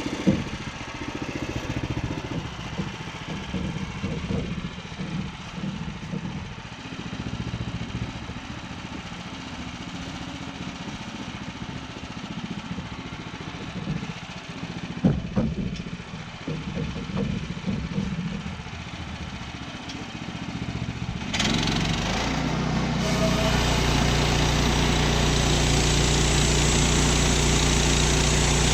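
Woodland Mills HM122 bandsaw mill's gas engine idling steadily, with a couple of knocks. About two-thirds of the way in the throttle opens and the engine runs up to a steady, louder high speed with a hiss, as the mill is brought up to cutting speed.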